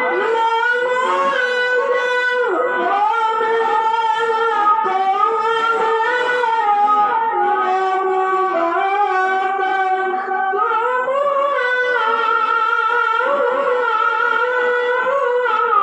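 A qari's solo Qur'an recitation in melodic tilawah style: one strong, high male voice holding long ornamented notes that waver and turn in pitch, with no pause.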